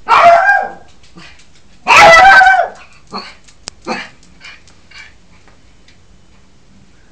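Yorkshire terrier barking: two loud, drawn-out barks in the first three seconds, each dropping in pitch at the end, then a few shorter, softer barks that trail off after about five seconds.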